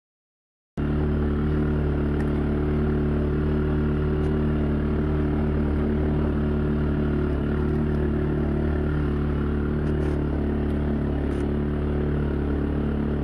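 Small off-road vehicle's engine running at a steady pace while driving, a constant even hum with a few faint clicks and rattles. It cuts in suddenly about a second in.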